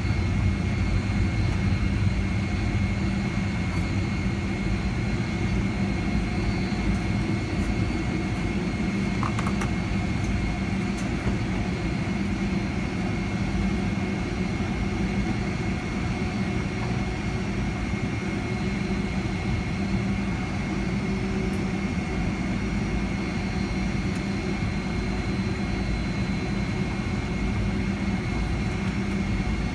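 Steady cabin noise inside a Boeing 757-300 taxiing at low speed: a constant low rumble with the engines' steady high whine over it.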